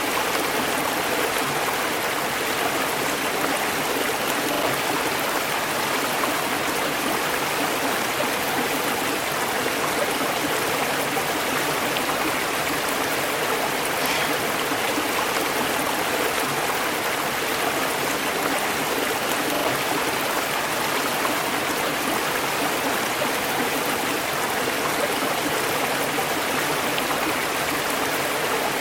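River water running over rocks in a steady, even rush.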